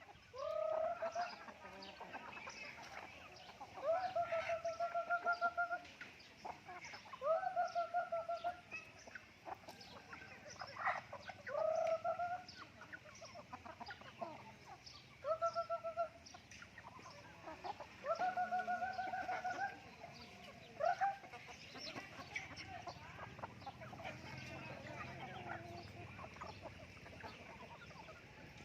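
Chickens calling: a series of drawn-out calls, each rising quickly and then held steady for one to two seconds, coming every few seconds, with short ticks and clucks between them. The long calls stop about 21 seconds in, leaving only the softer clucking.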